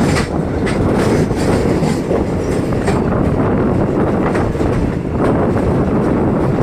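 Mumbai suburban local train running at speed: a loud steady rumble with the wheels clicking over rail joints at irregular intervals.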